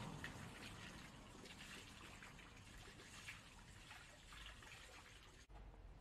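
Faint water trickling and splashing as a glass jar of candied chestnuts is rinsed out. The sound stops abruptly about five and a half seconds in.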